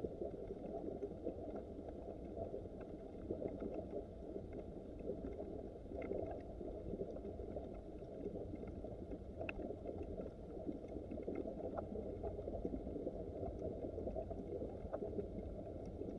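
Small mountain creek running: a steady, muffled rush of flowing water with faint scattered ticks.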